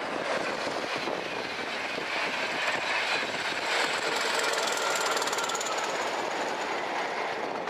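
A convoy of diesel locomotives, Class 20s with a Class 46, passing close at speed: engine noise and the rapid clatter of wheels on the rails build to a peak around the middle and ease off near the end, with a thin steady high whine running through it.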